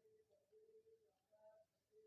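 Near silence: room tone with a few faint, short steady tones.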